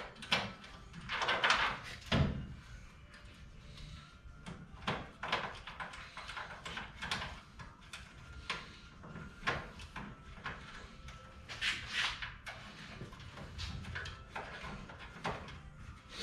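Hand work on car parts: irregular clicks, knocks and clanks, with a couple of longer scraping sounds about a second and a half in and again near twelve seconds.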